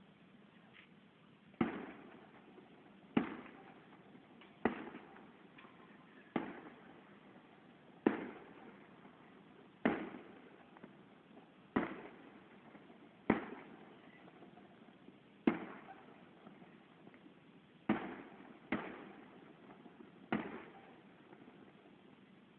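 Fireworks bursting in the distance: about a dozen sharp bangs, one every second or two, each trailing off in an echoing rumble.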